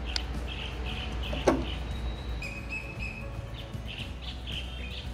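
Small birds chirping over and over in short high calls, with one sharp snip about a second and a half in as scissors cut through the spinach stems.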